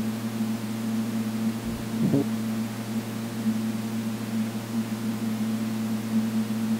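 A steady low electronic hum, two low tones held level without change.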